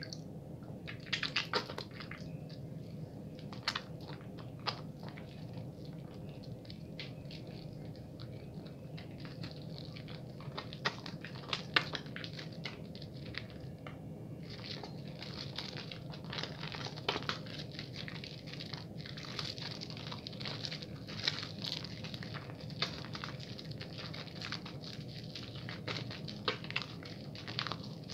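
Hands lathering a wet bar of soap: crackling, squishing foam with many scattered sharp clicks.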